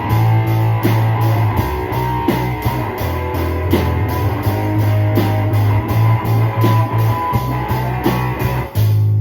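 Instrumental passage of a rock band demo: guitar strummed over a held bass line and drums playing a steady beat of about three hits a second.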